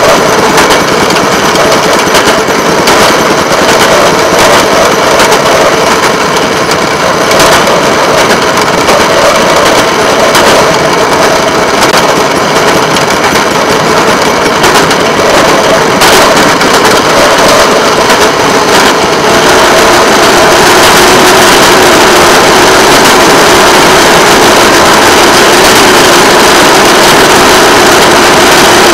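Rail motorcar travelling along the track: its small engine running steadily, loud, together with the car's running noise on the rails. The sound turns smoother and more even about twenty seconds in.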